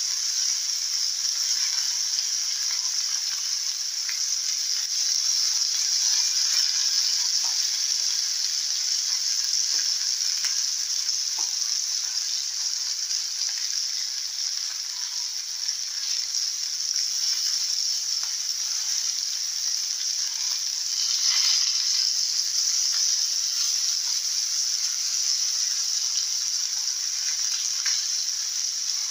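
Masala-coated sardines shallow-frying in hot oil in a pan: a steady sizzle, swelling briefly about two-thirds of the way through, with a few light knocks and scrapes of a spatula turning the fish.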